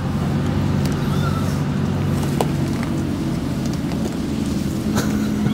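A steady low mechanical hum, like a motor or engine running, with a couple of faint clicks.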